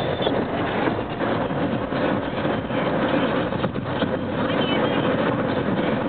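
Steady road and engine noise inside a moving van's cabin, with the air conditioning blowing.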